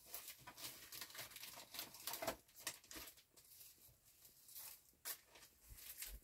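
Faint, scattered rustling and crinkling of clear plastic cellophane bags being handled, with a slightly louder crinkle about five seconds in.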